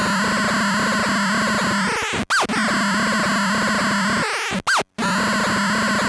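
Feedback-looper noise run through a sub-octave synth fuzz pedal: a thick, buzzing fuzz drone over a steady low tone. It cuts out twice, about two seconds in and near five seconds in, each cut a short dropout with a quick swoop in pitch, as the momentary-switch pedal glitches the signal.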